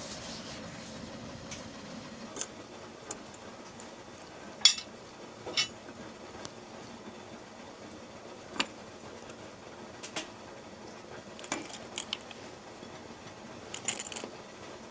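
Scattered light metal clinks and taps of camp cookware and utensils being handled, about ten separate strikes over a steady background hiss.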